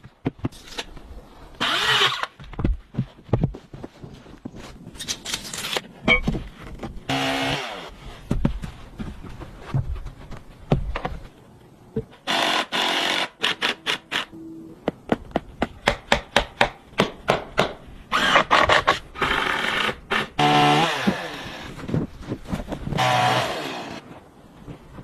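Wood being worked by hand: irregular knocks and scraping strokes, with a few creaks.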